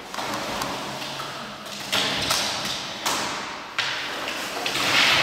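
Hollow knocks and scraping of a plastic barrel on a concrete floor as a young giant panda shoves it along with its head inside. There are several sudden knocks about a second apart, each trailing off.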